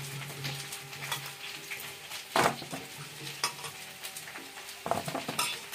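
Water splashing and draining as peeled carrots are rinsed in a stainless-steel colander, with a few knocks of carrots against the metal, the loudest about two and a half seconds in.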